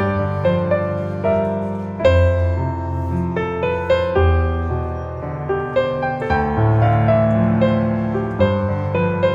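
Soft, slow background piano music: gentle notes over a sustained bass line.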